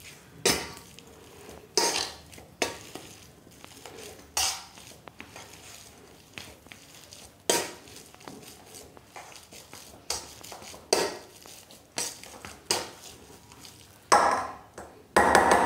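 Hand potato masher with a perforated metal disc mashing boiled potatoes in a stainless steel bowl: the masher knocks and clatters against the bowl in a string of sharp strikes, roughly one a second. Near the end the strikes come closer together and ring out more.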